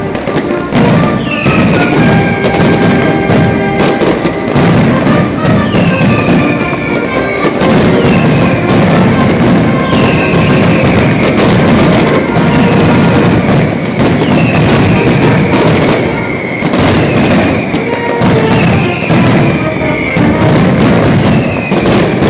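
Mascletà firecrackers going off in a dense, continuous barrage of rapid bangs, with whistling firecrackers shrieking down in pitch every second or two.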